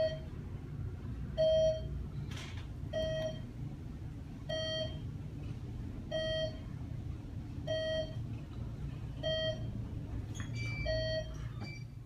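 Dover/ThyssenKrupp traction elevator sounding a short electronic beep about every one and a half seconds as the car rises past each floor, over the steady low hum of the moving car. Near the end a brief cluster of higher tones sounds.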